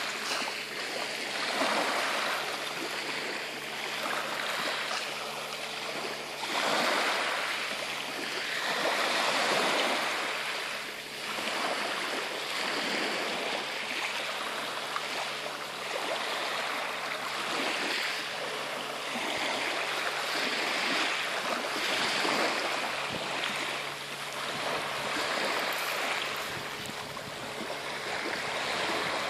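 Sea water washing and splashing in repeated surges a second or two apart.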